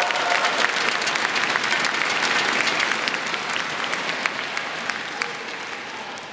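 Stadium audience applauding a won rally in a badminton match: many hands clapping, dying away over the last second or so.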